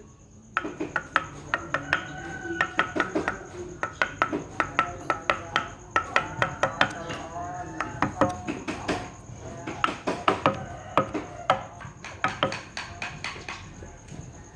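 Hand wood carving: a chisel struck with a mallet in quick runs of sharp taps, several a second, with short pauses between runs.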